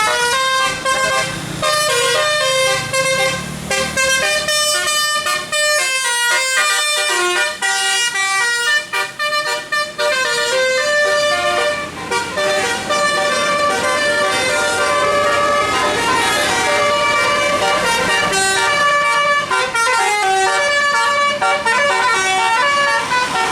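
Bus telolet horn, a multi-tone musical air horn, playing quick tune-like runs of stepped notes almost without pause.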